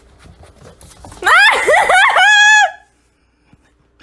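Faint footsteps on a wooden floor, then a loud, high-pitched shriek from a person's voice that warbles up and down several times, ends on a held high note and cuts off.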